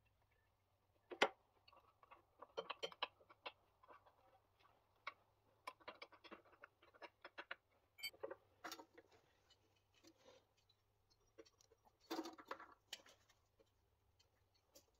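Sparse light clicks and taps of hands handling small metal parts at an engine's carburettor while fitting a fuel hose to it, with a sharper click about a second in.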